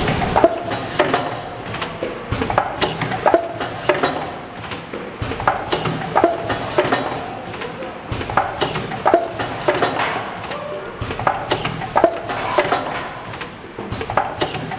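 Automatic rotary cup filling and lidding machine running: frequent sharp clacks and knocks of its indexing turntable and moving parts, several a second, over a steady mechanical background.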